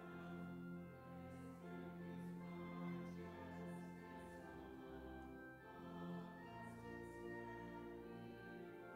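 Slow church music: long held chords with voices singing over instrumental accompaniment, the chord changing every few seconds.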